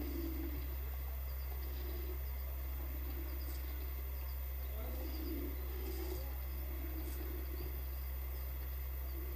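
Faint bird calls, a low cooing repeated about once a second and a few short high chirps, over a steady low electrical hum.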